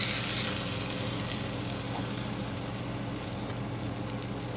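Cheeseburger patty and melted cheese sizzling on a cast iron griddle, the sizzle easing after about a second as the patty is lifted off with a spatula. A steady low hum runs underneath.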